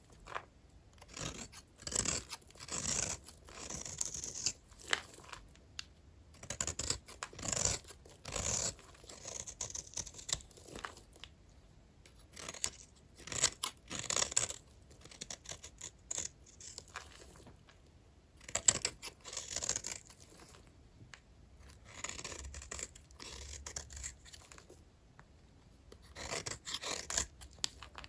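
A blade cutting through dry vintage hotel soap bars: a run of short, crisp scraping and crackling cuts, some in quick clusters, with brief pauses between them.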